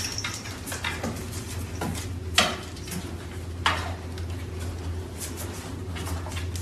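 Two sharp knocks about two and a half and three and a half seconds in, with lighter scattered clicks, over a steady low hum.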